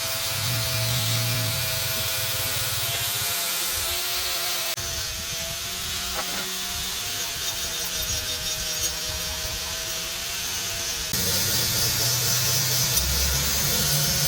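A small power tool running at a steady pitch, with a rasping, rubbing noise as it works against a part. The sound changes abruptly about five seconds in and again near eleven seconds.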